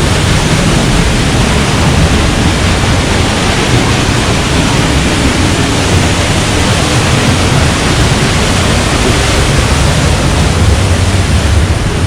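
Waterfall: a loud, steady rush of falling water, close to the microphone and echoing off rock.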